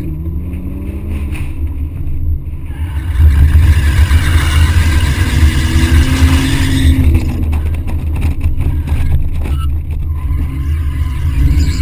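BMW 130i's 3.0-litre straight-six engine revving through a drift, heard under heavy wind buffeting on a camera mounted outside the car. The engine and road noise swell harder about three seconds in and ease off about seven seconds in.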